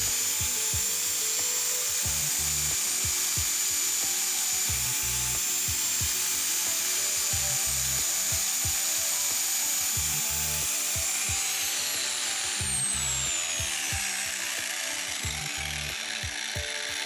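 Black and Decker grinder grinding the end of a steel wheel bolt clamped in a vise, shaving about a millimetre off it: a steady high whine over the rasp of metal. About eleven seconds in, the whine slides down in pitch.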